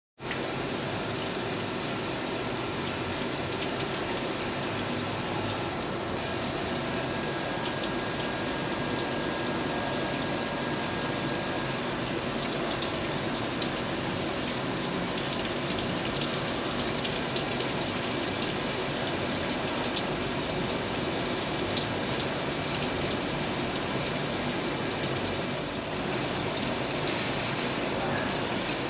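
Star SR-32 sliding-head CNC lathe running a machining cycle, with coolant gushing steadily over the tooling. There is an even wash of noise and a few faint steady whines.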